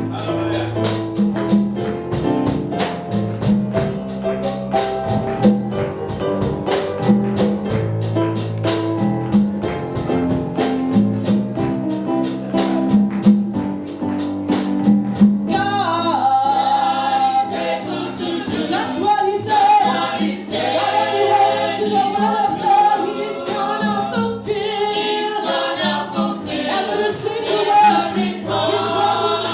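Gospel praise music with singing over bass and a steady percussion beat. About halfway through, the sound brightens and the singing voices come to the fore.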